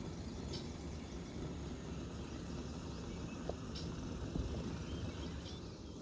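Camp stove burner running steadily under a pot of water coming to the boil, with a few short, faint bird chirps.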